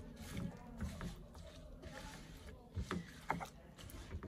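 A wooden spatula stirs sliced raw snake gourd and onion in a non-stick wok. The pieces shuffle against each other, with irregular light knocks of the spatula against the pan, the strongest about three seconds in.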